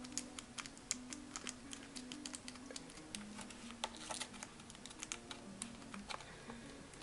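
Hands pressing and smoothing freshly glued cardstock flat on a tabletop: a steady run of irregular light taps and clicks, over soft background music.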